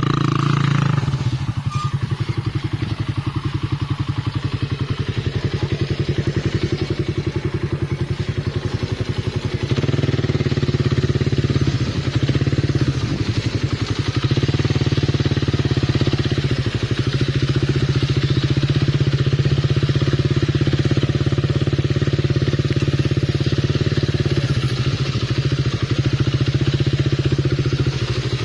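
Motorcycle engine running steadily while riding, its note easing off about a second in and picking up again about ten seconds in.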